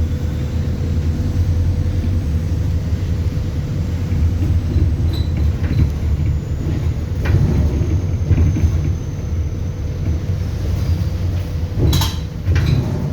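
Inside an ADL Enviro400 Hybrid double-decker bus under way: a steady low rumble of the drivetrain and road, with a thin high turbo whistle that slowly falls in pitch. A few sharp rattles from the bus body come near the end.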